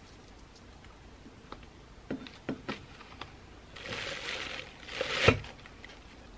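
Green glass soju bottles wrapped in plastic bags being set down in a stainless steel mesh strainer: a few light clinks and knocks, a crinkle of plastic, then a louder rustle that ends in a sharp thump.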